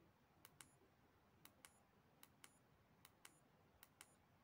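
Buttons on a Polaroid iD922 camera pressed over and over to step through its settings menu: five faint double clicks, roughly one a second, the second click of each pair with a brief high ring.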